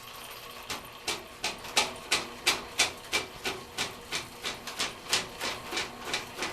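Powered sewer snake (drain auger) running in the drain line, its spinning cable ticking steadily about three times a second.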